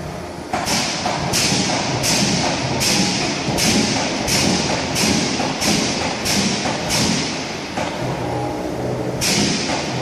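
Double-point mechanical power press cycling continuously, about one stroke every three-quarters of a second. Each stroke is a thud with a sharp hiss that fades quickly. Ten strokes run in a row, then there is a short pause and one more stroke near the end.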